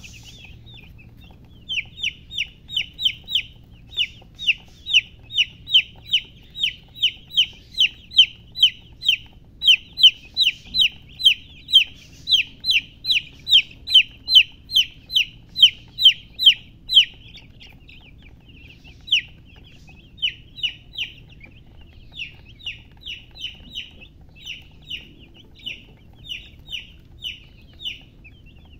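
Baby chick peeping: a steady series of short, high, falling chirps, about two or three a second, that grows sparser and quieter past the middle.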